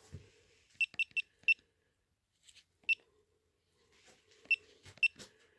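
Konnwei handheld car battery tester beeping once with each button press as its menu is stepped through: seven short high beeps, four in quick succession about a second in, one near three seconds, and two more near the end.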